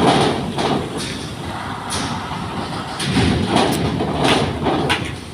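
Vehicles driving off a car ferry during unloading: engines and tyres running, swelling as one passes close, with a few sharp thuds.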